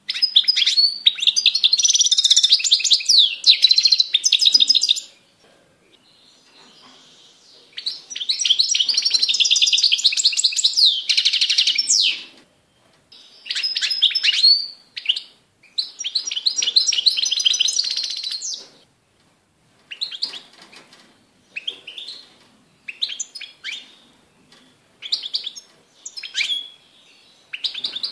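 European goldfinch (Carduelis carduelis) singing: long bouts of fast, high twittering song a few seconds each, separated by short pauses, then shorter separate phrases from about 20 seconds in.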